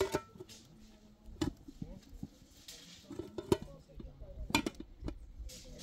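Irregular sharp knocks and clinks of hard objects, about five over several seconds, the loudest about three and a half seconds in.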